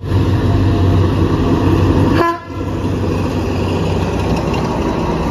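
State Railway of Thailand diesel locomotive running loud as it passes close, with a short horn toot about two seconds in, followed by the steady rumble of the passing train.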